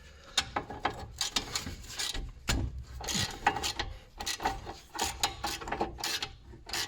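Socket ratchet clicking in quick short runs as a brake caliper carrier bolt is spun out after being cracked loose.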